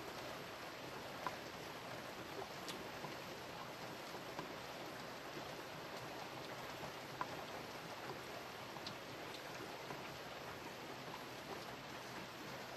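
Steady rain falling: an even hiss with scattered individual drops ticking out more sharply now and then.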